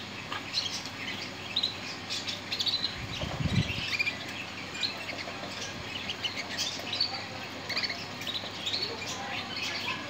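Canaries chirping, with short scattered call notes throughout. There is a brief low rumble about three seconds in.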